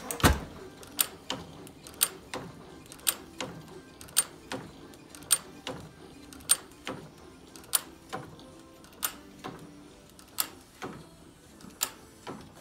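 A 6 hp Field Brundage sideshaft hit-and-miss engine fires once near the start. It then coasts on its flywheels, its valve gear and igniter trip giving a sharp click about once a second, often doubled, the clicks spacing out slowly as it loses speed.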